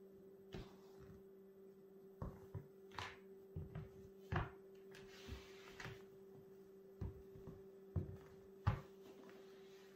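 Adidas F10 TRX FG soccer cleats stepping and shifting on a laminate wood floor: about a dozen irregular knocks and clacks of the moulded plastic studs, the loudest near the end, over a steady low hum.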